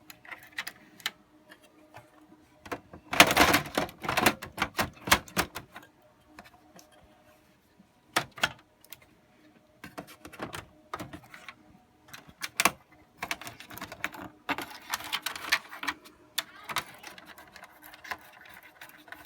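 Irregular clicks, taps and rattles of a server motherboard and metal chassis parts being handled and seated by hand, in bursts with a few single sharp clicks, over a faint steady hum.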